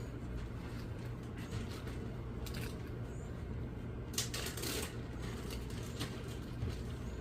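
An animal eating, with short irregular crunching and crackling bursts, strongest a little after the midpoint, over a steady low hum.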